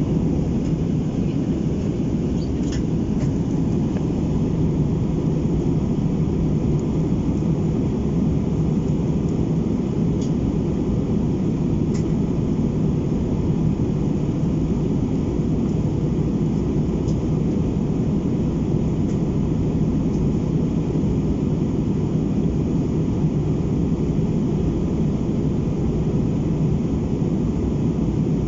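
Steady cabin noise of an Airbus A319 airliner in flight: a constant deep roar of engines and airflow through the fuselage, with a few faint ticks.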